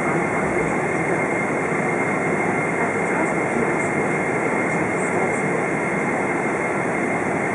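Steady jet engine and airflow noise of a Boeing 777-200 heard from inside the cabin while the airliner rolls on the ground, with a thin steady high whine running through it.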